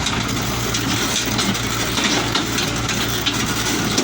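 Diesel engine of a Komatsu PC75 excavator running at a steady idle, with light rattling over the low hum.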